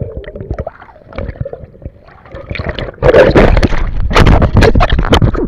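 Water splashing and sloshing, irregular and gurgling at first, turning much louder and rougher with a heavy low rumble about three seconds in.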